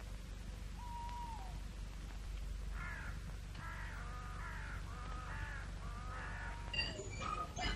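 A faint series of short animal calls, about two a second, over the steady hum and hiss of an old film soundtrack.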